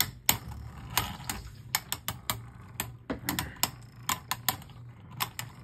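Two Beyblade Burst spinning tops clacking against each other in a plastic stadium mid-battle: a run of irregular, sharp plastic-and-metal clicks, several a second.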